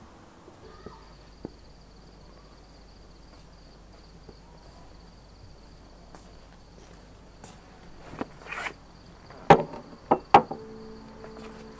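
A handful of sharp clinks and knocks as glasses and a bottle are set down on a coffee table, the loudest two close together near the end. A faint steady high whine and low hum run underneath.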